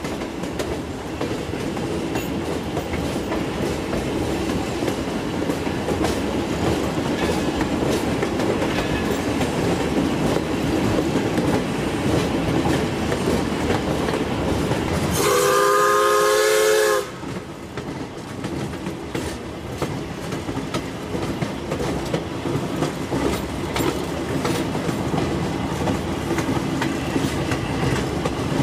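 Lima Shay geared steam locomotive hauling log cars, with a steady rumble and clatter of the train rolling on the rails. Just past the middle comes one steam whistle blast of about two seconds, sounding several notes at once, the loudest sound here.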